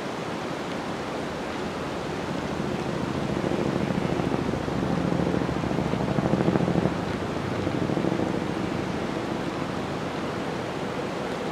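Steady rushing noise of sea surf and wind, swelling through the middle and easing off again, with faint low humming tones beneath.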